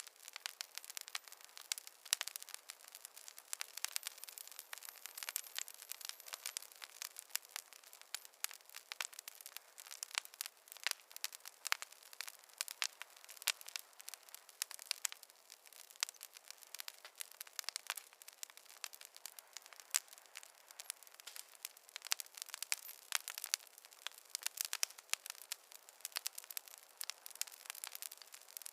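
Wood fire crackling, with dense, irregular sharp pops and snaps throughout.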